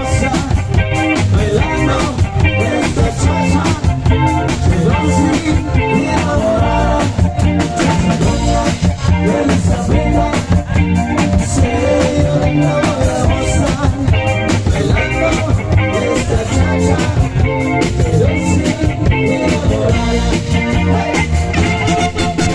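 Cha-cha dance music played loud over a mobile PA sound system, with heavy bass, guitar, drums and a steady beat.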